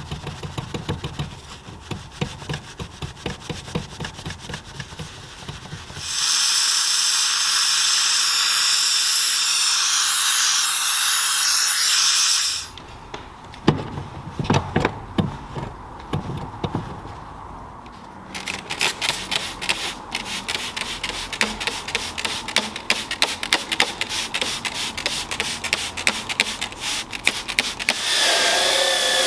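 Stiff detailing brush scrubbing car floor carpet in quick rasping strokes, then a steam cleaner hissing steadily for about six seconds. Cloth rubbing and brisk fast scrubbing follow, and near the end a cordless drill brush's motor starts with a whine.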